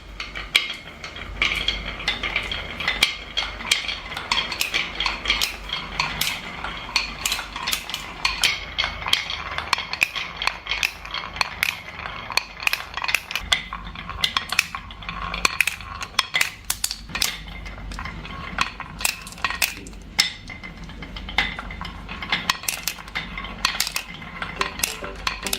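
Many marbles rolling and clacking along a marble run's tracks, a dense, irregular stream of sharp clicks and rattles over a low rumble.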